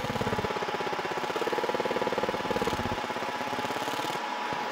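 EM Smart Basic 1 20 W fibre laser engraver buzzing as its galvo mirrors scan the beam across steel, a rapid pulsing buzz whose pitch rises and falls, over a steady hum.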